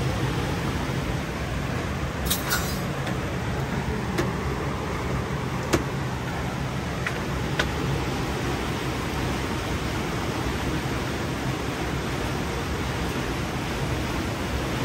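Steady rushing background noise with a low hum underneath, broken by a few small clicks, the sharpest about six seconds in.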